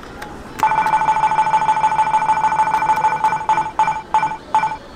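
Electronic beeping from a candy vending machine's number-roulette game after its START button is pressed. A rapid, unbroken run of beeps starts about half a second in, then breaks into single beeps that come further apart near the end as the spinning digits slow.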